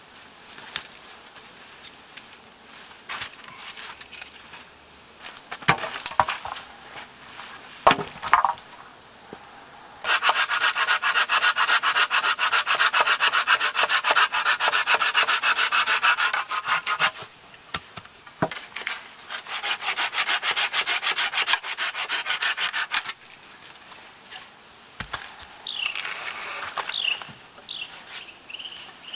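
Hand saw cutting through wood in two long runs of fast, even strokes, after a few scattered knocks and snaps of wood being handled.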